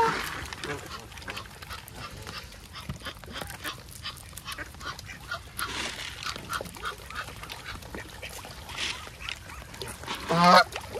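Geese and ducks calling: a loud honk right at the start and another near the end, with softer short quacks and calls in between.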